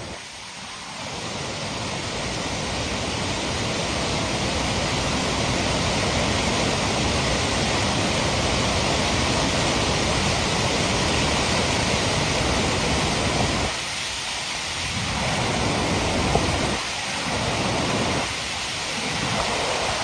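Muddy floodwater rushing and churning in a loud, steady wash of noise. It swells over the first couple of seconds, and the low rumble drops out briefly a few times in the last third.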